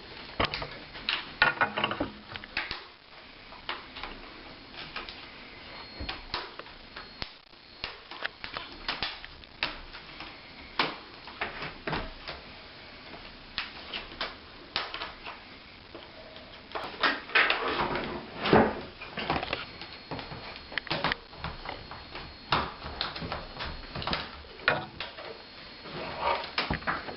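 Plastic screen bezel of a Samsung NP300V5A laptop being pried off with a flat tool: irregular clicks and snaps as its snap-fit clips let go, with a louder run of snaps about two thirds of the way through.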